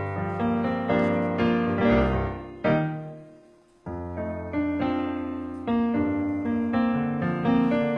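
Piano music, a melody of struck notes over chords. About three seconds in, a chord dies away almost to silence, and the playing picks up again a second later.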